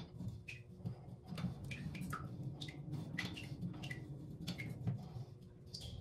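A stiff sink angle stop valve squeaking as its handle is worked back and forth, a string of short high squeaks two or three a second. The valve stem is seized and is being freed by hand after its packing nut was loosened.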